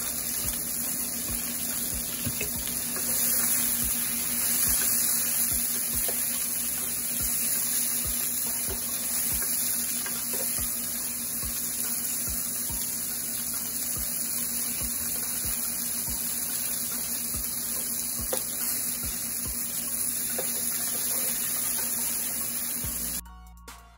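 Kitchen tap running steadily into a sink, with water splashing. It cuts off abruptly about a second before the end.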